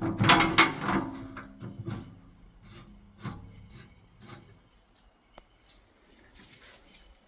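Belt-tension lever and drive belt of a Clausing metal lathe being handled to shift speeds: a cluster of knocks and rubbing in the first two seconds, then a few lighter clicks fading away.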